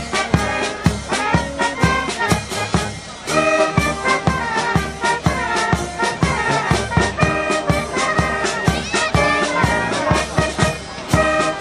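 Small brass band of trumpets, trombones, tuba and bass drum playing a tune outdoors with a steady beat on the drum.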